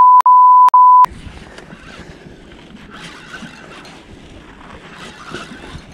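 A loud, pure beep of an edited-in censor bleep, broken into three back-to-back parts over about the first second, covering a word. After it, steady wind noise on the microphone.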